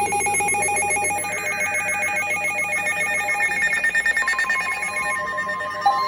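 Emergency Alert System header: buzzy, rapidly warbling digital data tones of the SAME code. Just before the end, the steady two-tone EAS attention signal begins.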